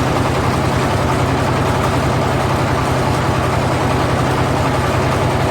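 A power tiller's single-cylinder diesel engine running steadily, driving a firewood splitter.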